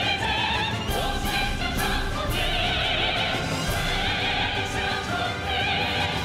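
Women singing a bright festive song together, their voices wavering with vibrato, over a full orchestral accompaniment with regular percussive strikes.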